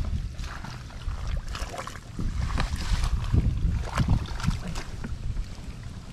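Shallow pond water sloshing and splashing in irregular bursts as someone wades and gropes through it for fish, with wind rumbling on the microphone.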